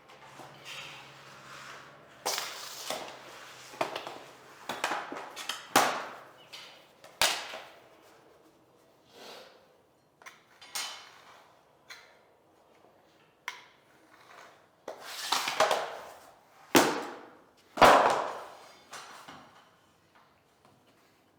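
Irregular knocks, clacks and scraping as vinyl click flooring planks are handled and fitted, with a few sharp cracks, the loudest near the middle and toward the end.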